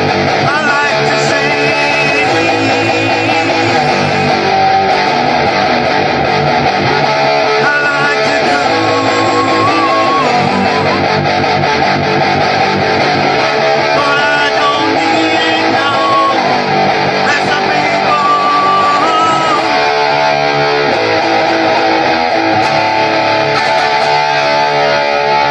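Instrumental guitar music, a melody line over strummed chords.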